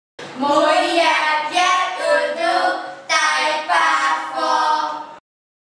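A woman and two children singing together, a short greeting in two phrases with held notes, starting and cutting off abruptly.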